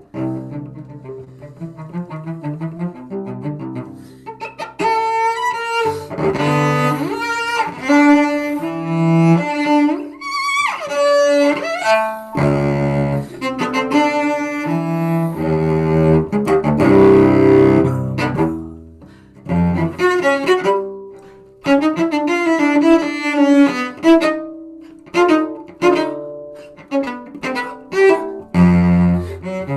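Solo cello played with a bow. A softer stretch at first, a quick glide in pitch about ten seconds in, loud sustained notes and chords in the middle, and short, separated notes near the end.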